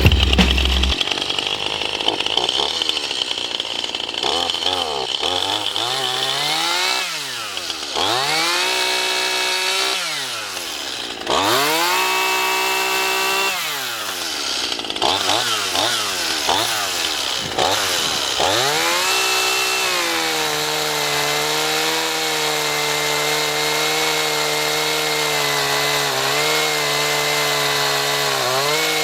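Stihl MS171 chainsaw's 31.8 cc two-stroke engine revved repeatedly, its pitch rising and falling several times, then held at a steady speed for the last third.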